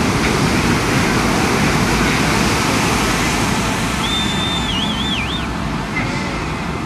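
Steady roar of heavy surf breaking at the shore. About four seconds in, a short high whistle holds one note, then wobbles and falls away.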